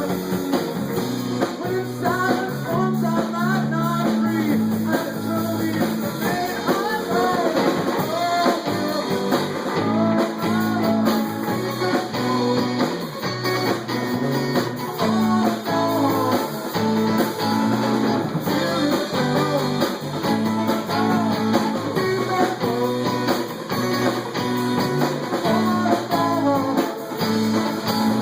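A live band playing, led by guitar over a steady bass line, with many short sliding, wavering melodic notes.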